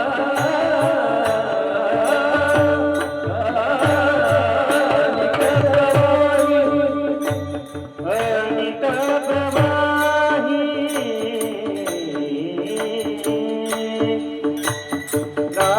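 Devotional kirtan music: a wavering, ornamented melody over steady held tones, with hand-drum strokes and a regular ticking percussion beat. The music dips briefly about halfway through.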